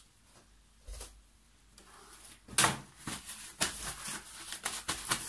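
Handling noises at a worktable: a soft knock about a second in, then from about halfway a quick run of crinkly rustles and clicks.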